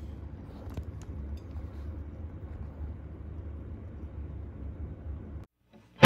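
Steady low background rumble of room tone, with a few faint clicks. It cuts off suddenly about five and a half seconds in.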